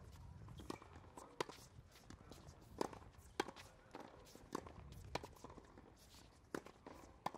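Tennis ball being hit with rackets and bouncing on a hard court: sharp pops at uneven intervals of about half a second to a second and a half, with footsteps and shoe scuffs between them.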